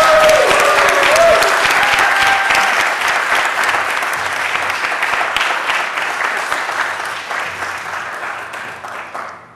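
Audience applauding, loudest at the start and gradually fading away until it stops.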